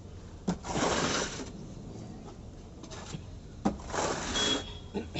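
A steel putty blade scraping texture putty across a wall, two strokes of about a second each, the first about half a second in and the second near the middle. Each stroke starts with a sharp tap as the blade meets the wall.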